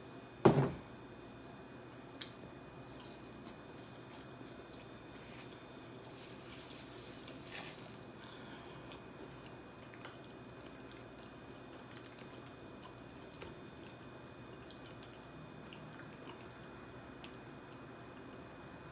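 Faint chewing and wet mouth sounds of someone eating fried chicken, with a few light clicks from handling food and utensils. A single sharp knock sounds about half a second in.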